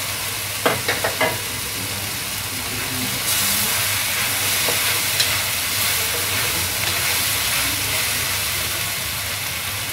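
Sliced eggplant and okra sizzling in hot oil in a wok, stirred and turned with a wooden spatula. A few sharp knocks come about a second in, and the sizzle grows brighter from about three seconds in.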